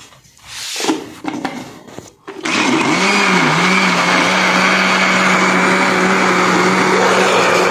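A few handling knocks, then about two seconds in an electric blender switches on and runs steadily, grinding a thick mix of yogurt, gram flour, spices and water. Its hum wavers briefly as the motor comes up to speed, then holds steady.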